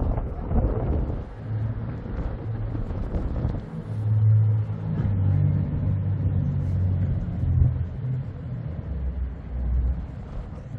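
A low engine drone whose pitch shifts up and down and whose level swells and eases over several seconds.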